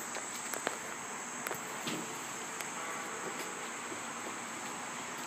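Steady high chirring of crickets in the background, with a few faint clicks.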